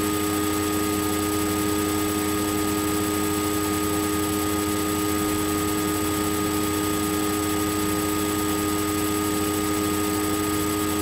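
Steady hiss with a constant hum and a few steady whining tones, unchanging throughout; no other sound stands out.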